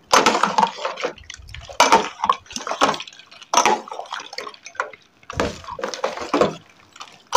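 Steel ladle stirring ice cubes and milk in a stainless steel bowl: sloshing liquid with irregular clinks of ice and metal against the bowl, in about five short bursts with brief pauses between.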